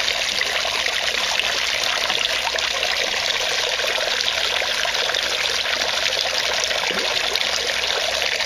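Several thin streams of water falling from a pipe into an aquaponics fish tank, a steady, even trickle of water into water.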